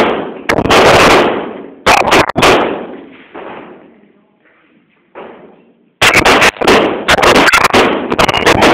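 Gunshots at a firing range, each with a long echoing decay: a few single shots in the first two and a half seconds, a fainter one about five seconds in, then a quick string of shots from about six seconds in.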